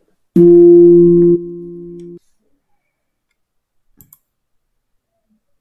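A loud, steady electronic buzzer-like tone at one low pitch. It starts suddenly, drops to a softer level after about a second and stops abruptly about two seconds in. Two faint clicks follow near the end.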